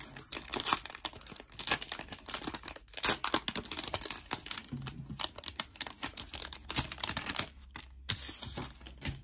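Foil wrapper of a Pokémon TCG booster pack being torn open and crinkled in the hands, a dense run of quick, sharp crackles.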